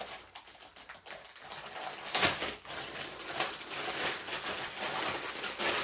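Irregular crackling and rustling from handling a self-adhesive LED light strip, with the sharpest crackle about two seconds in.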